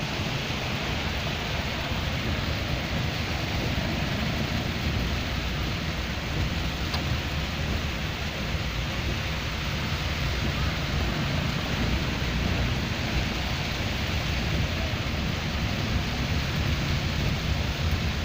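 Steady rushing water noise, even throughout, with a fluttering low rumble underneath.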